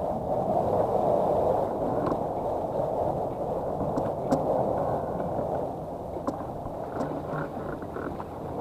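Water gurgling against a fishing kayak's hull under a steady low rush of wind and water noise, with a few faint clicks.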